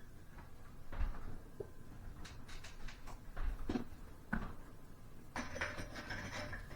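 Scattered light clicks and knocks of parts being handled while a ceiling fan's light fixture is put back together, with a longer scraping noise near the end.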